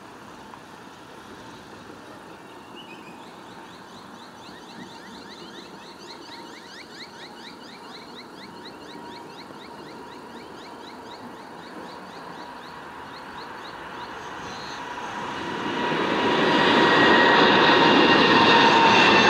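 Boeing 787-9 jet engines at takeoff power: a faint distant rumble that swells loudly from about 15 s in as the airliner climbs close overhead, a steady whine over the roar.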